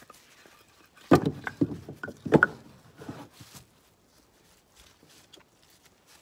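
Short lengths of dry dead wood dropped onto a pile, clattering in several hard knocks over about a second and a half, followed by faint footsteps.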